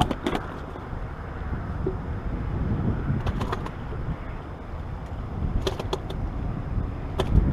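Steady low rumble of wind on the microphone and water around bass boats, with a few light clicks and knocks from gear being handled on the boat deck.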